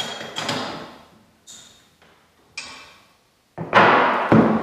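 Knocks and clunks of a metal davit mount being shifted and set on a plywood platform: a few separate knocks, each ringing off briefly, then a louder double clunk near the end.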